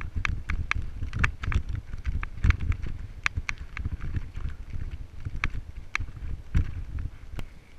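Mountain bike rattling down a rocky dirt trail: frequent sharp clicks and knocks from the bike jolting over stones, over a steady low rumble of wind buffeting the microphone and tyres rolling on dirt.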